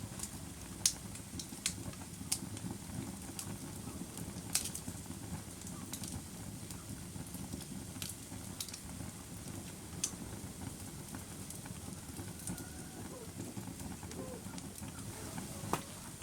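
Wood fire burning in a fireplace: a steady low rush of flames with sharp, irregular crackles and pops. The loudest pop comes about a second in, and several more follow over the next few seconds.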